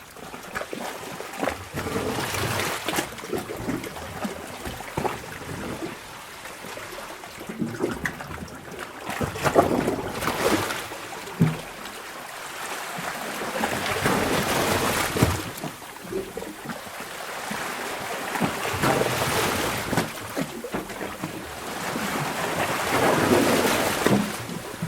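Sea waves surging into a rock sea cave and draining back out: water washes in swells that build and fall every four to five seconds, with short splashes and slaps of water among them.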